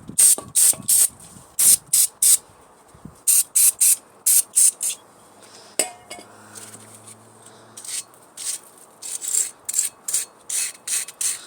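A small stiff brush scrubbing brake parts being cleaned with brake cleaner, in quick hissy strokes about three a second. The strokes come in runs, with a pause of a few seconds in the middle.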